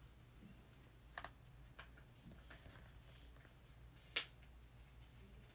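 Near silence: faint room hum with a few soft, sharp clicks, the clearest about four seconds in.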